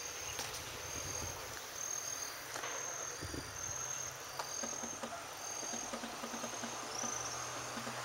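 Insects chirping in short, thin, high-pitched notes that repeat at a steady pitch every half second or so, over a low rumble on the microphone.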